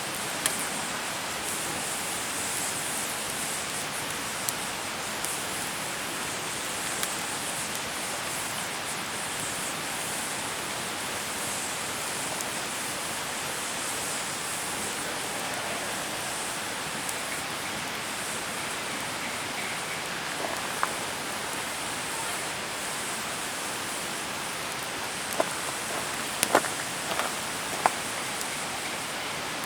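Wood fire burning: a steady hiss with scattered sharp crackles and pops, a cluster of louder cracks near the end.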